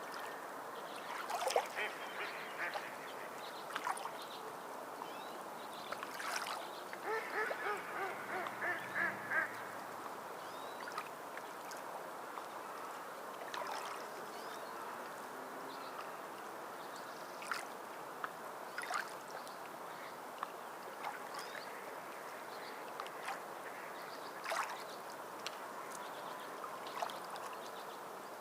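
Waterfowl calling with honks and quacks: scattered short calls, and a quick run of calls about a third of the way in, over a steady wash of water.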